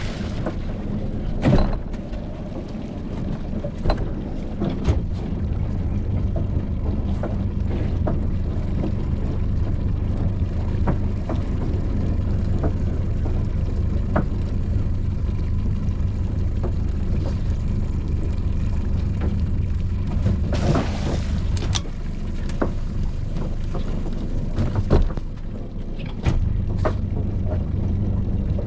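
Fishing boat's engine running steadily with a low hum, with scattered knocks and clatter, the first about a second and a half in and another near the end. A short rush of noise comes about twenty-one seconds in.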